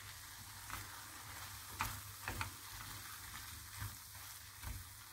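Faint sizzling of a minced-meat and tomato filling in a hot frying pan as a silicone spatula stirs it, with a few light spatula taps about two seconds in.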